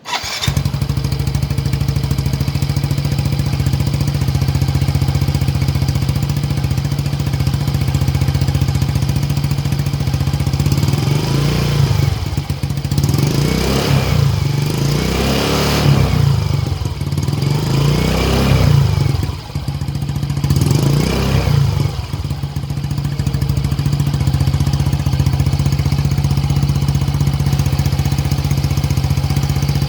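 Yamaha MSI 125 scooter's single-cylinder engine running through an Exos X-6 'Silent Killer' aftermarket exhaust: steady idle, then four throttle blips in the middle, each rising and falling in pitch, before settling back to idle.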